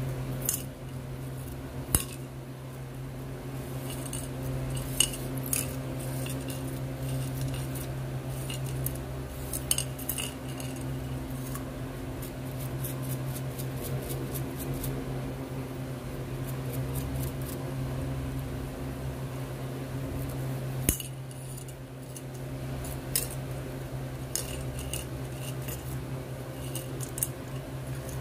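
Gold chain clinking against a ceramic bowl as it is brushed and handled in soapy water: scattered small clicks and clinks, a few sharper ones, over a steady low hum.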